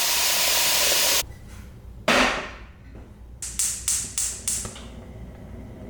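Tap water running into a metal pot, cut off suddenly about a second in. A loud clank follows, then five quick sharp clicks, about three a second.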